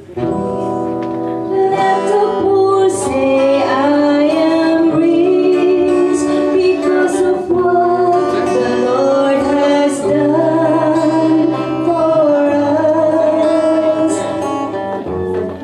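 Singing with instrumental accompaniment: a slow worship song with long held notes over a steady bass line.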